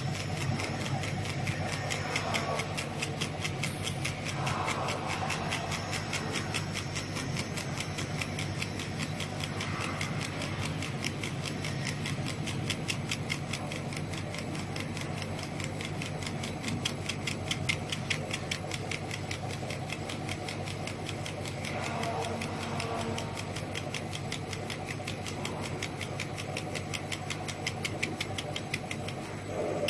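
A two-head 150 W CO2 laser cutting machine running while it cuts acrylic sheet. It gives a steady hum with a fast, even ticking throughout.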